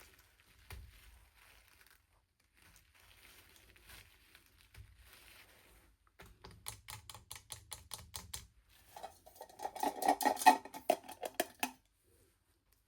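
Small plastic packaging handled by hand: faint rustling at first, then rapid clicking from about six seconds in, building into a louder crackle for a few seconds before stopping near the end.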